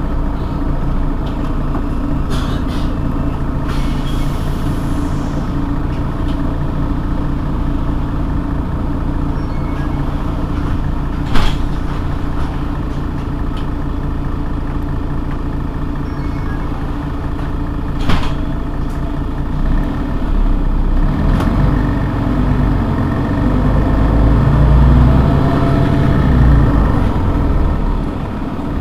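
Mercedes-Benz Citaro G C2 articulated city bus idling, its engine running steadily. Two sharp knocks stand out, about 11 and 18 seconds in, and a deeper rumble swells and fades again in the last third.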